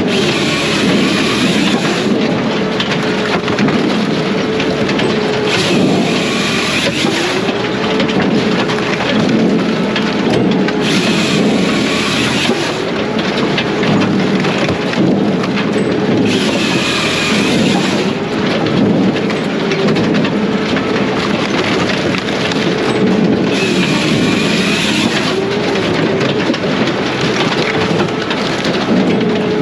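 Diesel firewood processor running under load. Its engine and hydraulics hum steadily, the engine pitch dips and recovers again and again, and a higher hissing cut sound comes in for a second or so roughly every five to six seconds as it works through the logs.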